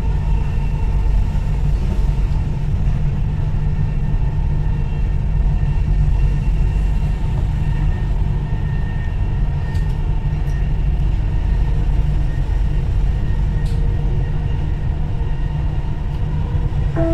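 Dubai Metro train in motion, heard from inside the carriage: a steady, loud low rumble with a faint steady whine above it.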